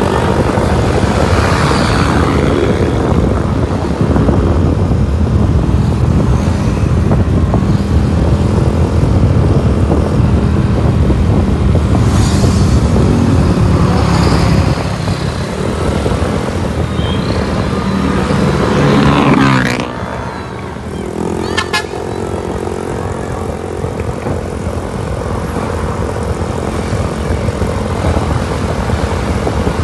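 Road traffic heard while moving along with it: engines and tyre noise of passing vehicles. About 20 seconds in, a vehicle sweeps past close by, and the noise then drops to a lower, steadier level.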